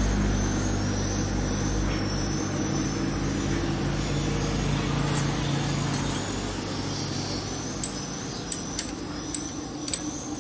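A nearby motor vehicle's engine hums and fades away over the first half, with light high tinkling tones throughout. Near the end come several sharp metallic clinks as small engine parts and tools are handled.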